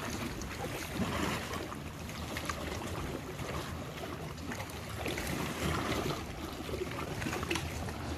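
Water lapping and splashing around a paddled canoe, under a steady rushing noise with a few brief louder splashes.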